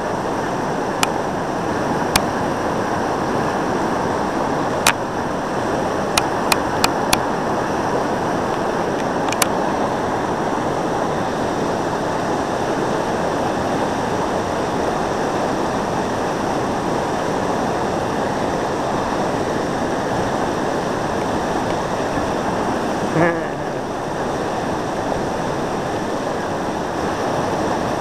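Steady rushing roar of whitewater pouring over a river ledge rapid. A few sharp clicks come in the first ten seconds, and a brief shout about 23 seconds in.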